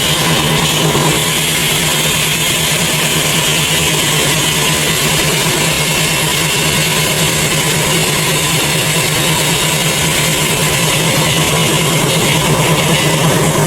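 Heavy machinery running steadily: a constant engine-like drone with a strong low hum and a dense hiss above it, unchanging throughout.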